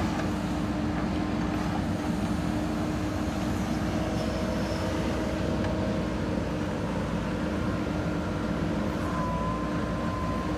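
JCB 3DX backhoe loader's diesel engine running steadily while working, with a steady whine over the rumble.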